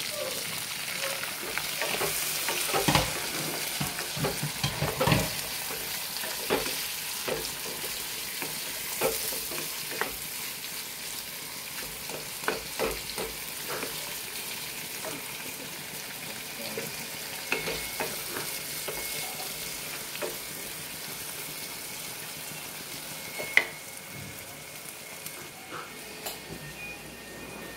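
Sliced onions sizzling in hot oil in a kadai, stirred with a wooden spatula that knocks and scrapes against the pan every second or so; one sharp clack about three-quarters of the way through.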